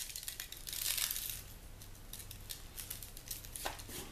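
Coarse sea salt brushed off the hands onto a potato in a foil pan: scattered light ticks of falling grains, with a soft rubbing rustle about a second in.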